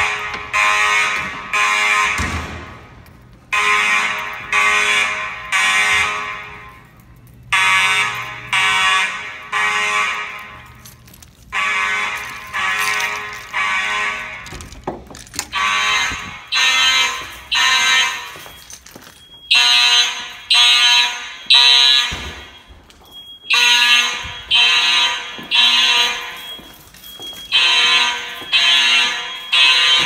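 Fire alarm horns sounding the temporal-three evacuation pattern: three short blasts, a pause, then three more, repeating about every four seconds. The horns grow louder and brighter about two-thirds of the way in.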